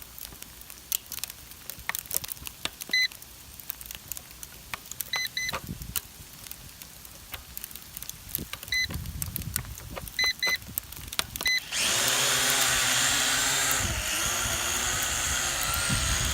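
Scattered clicks and several short electronic beeps, then about twelve seconds in the Vivitar Aeroview quadcopter drone's motors start suddenly and run with a steady propeller whir.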